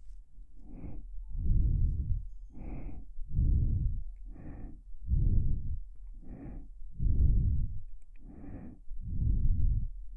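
Slow, even breathing close into the ears of a KU100 binaural dummy-head microphone: about five breaths in and out, each pair a brighter, hissier breath followed by a deeper, louder one.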